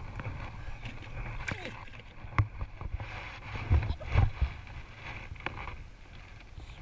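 Wind rumbling on the microphone, with a few sharp clicks and knocks about two and a half and four seconds in as a spinning rod and reel are handled.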